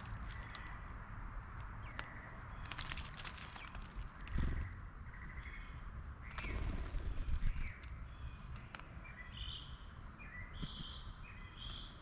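Small songbirds giving short chirps and calls, several in quick succession near the end, over steady outdoor background noise. A few sharp clicks are heard, along with a low thump about four seconds in and a stretch of low rumble around seven seconds.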